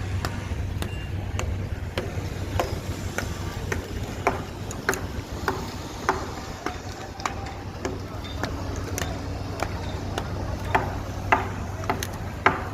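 Irregular sharp clicks and light taps, roughly one or two a second, over a steady low hum.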